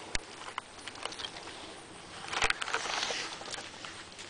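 Rustling and a few sharp clicks from walking in dry grass and fallen leaves, with a louder stretch of rustling a little past halfway.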